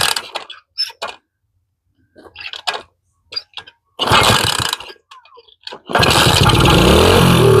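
Small kick-start engine on a pocket dirt bike being kicked over on a shot of carb cleaner: a few short bursts, a brief pop about four seconds in, then about six seconds in it catches and runs, revving up and down.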